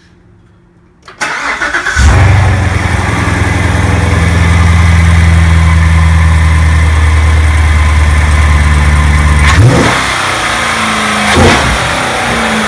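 Corvette C7 Stingray's LT1 V8 being started: the starter cranks about a second in, and the engine catches and settles into a loud, steady fast idle. About ten seconds in the sound drops to a quieter, less steady idle.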